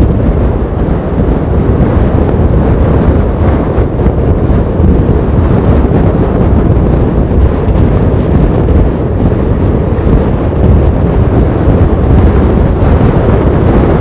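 Strong, gusty wind buffeting the microphone on a motorcycle at road speed: a loud, rough rumble that flutters up and down without a break, with the bike's road noise beneath it.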